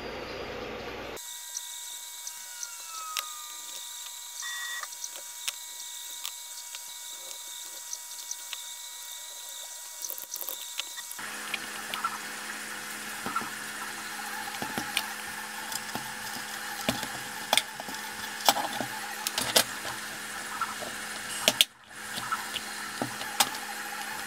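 Scattered small clicks and taps of plastic parts being handled as a Sonoff relay module's case is closed and the module is snapped onto a 3D-printed plastic bracket on a desk lamp's arm. Under it runs a faint steady electrical whine whose character changes abruptly a couple of times.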